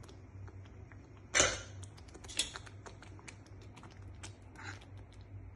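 Steel spoon clicking and scraping against a kadhai as white paste is stirred into thick curry gravy, with one louder knock about a second and a half in, over a low steady hum.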